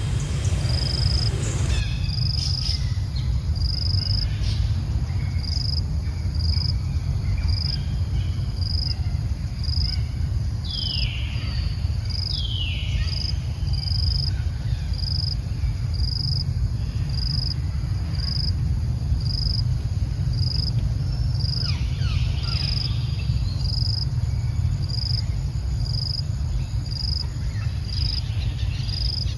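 Outdoor ambience: a steady low rumble under an insect's high, regular chirp, repeating about once a second. Short high calls that fall in pitch come twice around ten to thirteen seconds in and again around twenty-two seconds in.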